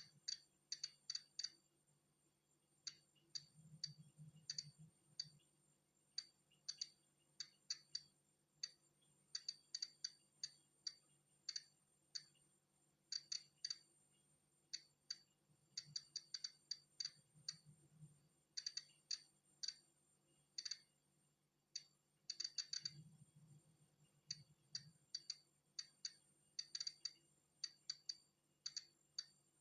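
Polon EKO-C digital Geiger counter clicking at irregular, random intervals, about two to three sharp clicks a second, sometimes bunched together: each click is one detected count of natural background radiation.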